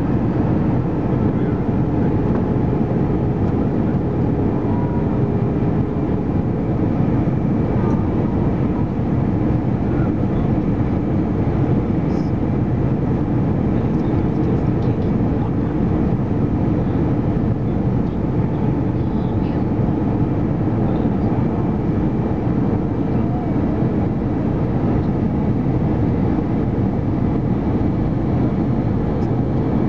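Airbus A319 cabin on approach, heard from a window seat: a steady roar of jet engines and rushing air with a faint hum.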